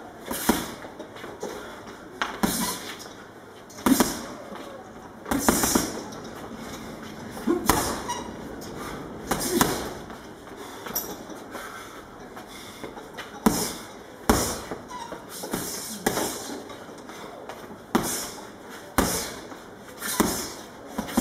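Boxing gloves punching a hanging heavy bag: sharp slapping thuds at irregular intervals, one every second or two, sometimes two in quick succession.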